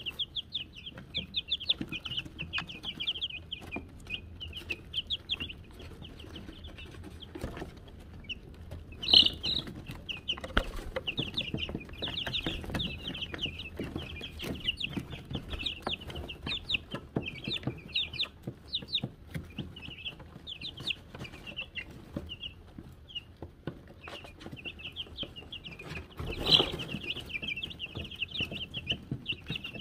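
A brood of Wyandotte chicks peeping continuously in quick, high chirps, with many small clicks and rustles among them. Two louder sudden sounds stand out, one about nine seconds in and one near the end.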